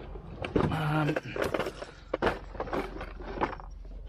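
Clear plastic tackle boxes being handled: several sharp plastic clicks and knocks from the lids and trays, with a brief low hum about a second in.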